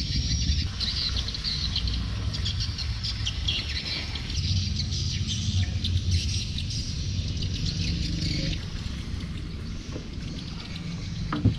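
A small engine running steadily, with dense high chirping over it.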